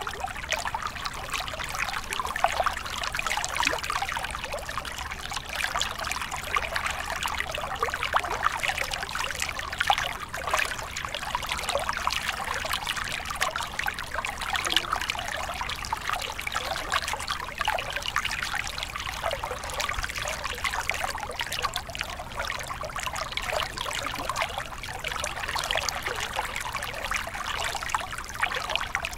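Small mountain stream running down a short cascade over rocks into a pool: a steady, unbroken splashing and trickling of water.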